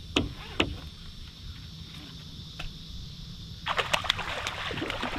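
A hooked fish thrashing and splashing at the water's surface beside the boat. The splashing starts abruptly about three and a half seconds in, over a steady high drone of insects. There are two sharp clicks near the start.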